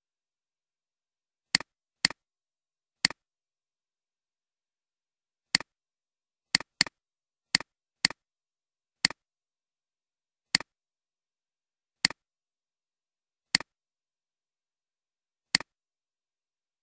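Computer mouse clicking: about a dozen single sharp clicks at irregular intervals, including a quick double-click, with silence between them.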